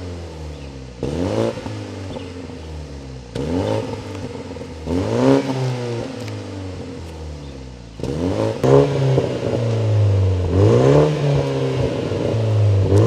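Toyota Supra MK5 engine revving through a freshly fitted aftermarket intake and valved exhaust. The revs climb and drop back in about five blips, and the later ones hold higher.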